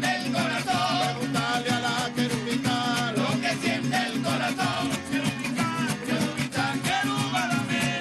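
Venezuelan parranda carachera played live: male voices singing over strummed cuatros, with a steady, busy percussion rhythm.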